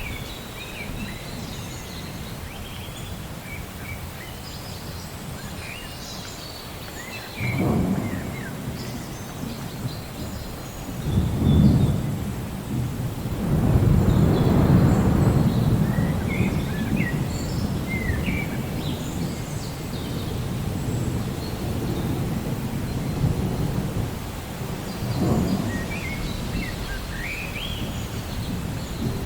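Thunder rumbling several times: a roll about a quarter of the way in, another a few seconds later, then the longest and loudest rumble near the middle, and a weaker one near the end. Birds chirp throughout.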